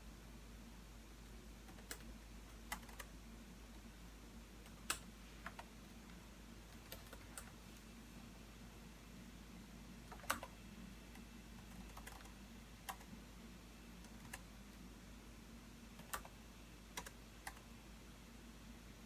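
Sparse, irregular keystrokes on a computer keyboard: single key taps about once a second with short pauses between, the slow, halting typing of someone composing text. A faint steady low hum sits underneath.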